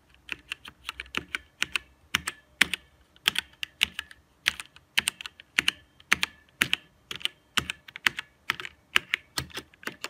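Typing on a Gamepower Warlock Compact mechanical keyboard with red (linear) switches: a quick, irregular run of key clacks, several a second.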